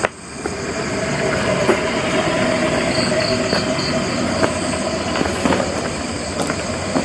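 Steady rumbling noise of a passing vehicle, swelling over the first second and then holding, with a few light clicks.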